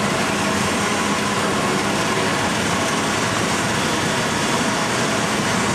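Four-wheel-drive engine running steadily, with an even rushing noise over it.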